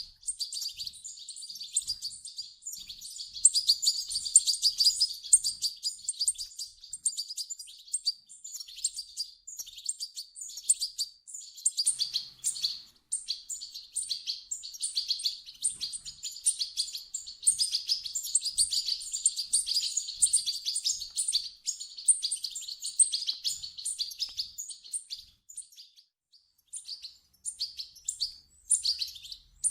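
European goldfinch chicks calling in a rapid, continuous high twittering of quick chirps, with a brief pause near the end.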